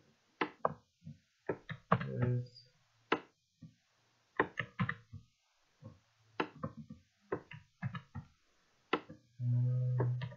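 Computer keyboard being typed on: irregular keystroke clicks, several a second in short runs with pauses between. A short low hum sounds near the end.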